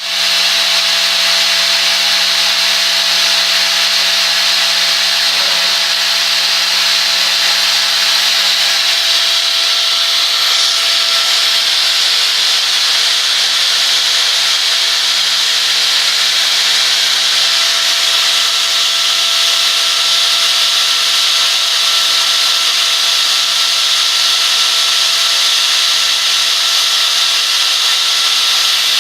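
Improvised cylindrical grinding on a CNC machine: a spinning grinding wheel working a hardened 56 HRC ribbed steel part. It makes a steady, high grinding hiss over a constant motor whine.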